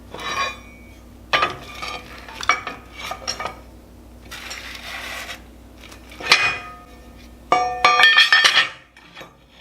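Pieces of scrap metal clanking and ringing as they are handled and set against each other, with a brief scrape about halfway through. A quick run of ringing clanks near the end is the loudest part.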